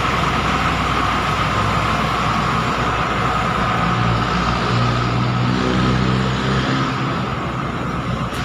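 Roadside traffic noise, with a motor vehicle's engine growing louder about three seconds in and fading away by about seven seconds as it passes.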